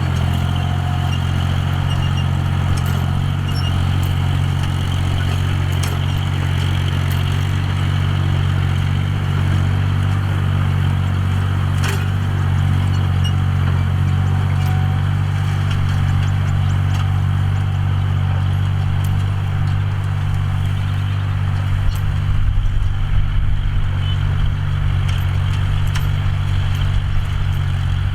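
John Deere 5045D tractor's three-cylinder diesel engine running steadily while ploughing, with scattered light clicks and clatter. About two-thirds of the way through the low rumble turns rougher and a little louder.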